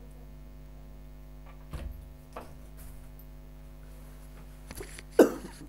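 A low, steady electrical hum with a few short, sudden sounds over it. The loudest and sharpest comes near the end.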